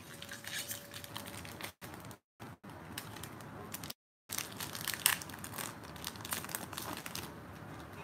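Foil wrapper of a Pokémon trading-card booster pack crinkling and crackling as it is handled and torn open. The audio briefly cuts out about two and four seconds in.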